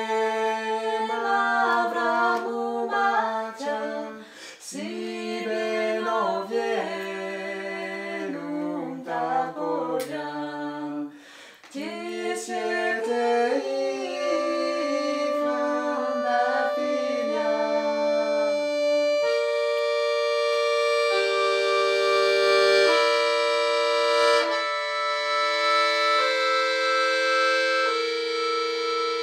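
Piano accordion accompanying singing, first a man's voice and later a woman's. For the last ten seconds or so the accordion plays held chords on its own.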